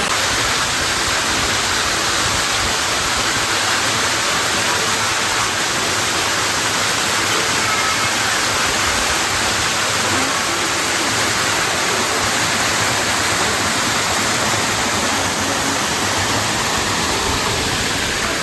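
Steady rush of a waterfall, water pouring and splashing without a break.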